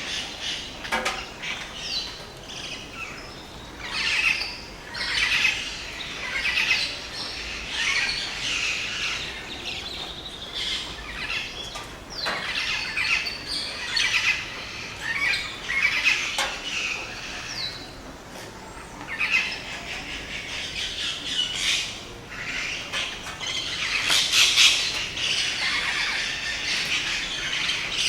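Rainforest dawn chorus: many birds calling at once, a dense mix of chirps, whistles and harsh squawks. The chorus swells louder several times, most of all near the end.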